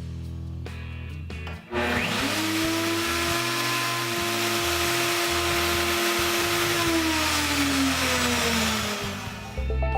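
Router motor in a router table switched on: it spins up quickly to a loud, steady high whine, runs for about five seconds, then is switched off and winds down with a falling pitch.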